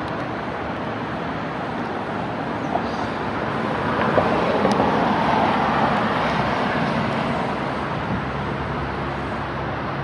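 Road traffic: a car passing on the road beside the tram track, its tyre and engine noise swelling about four seconds in and fading away again over a steady background hum.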